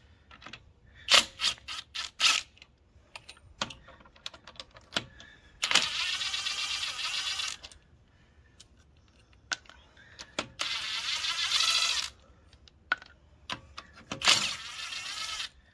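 Cordless impact wrench running in three bursts of one to two seconds each, spinning already-loosened lug nuts off a car wheel. Sharp clicks and clinks of the socket and nuts come between the bursts.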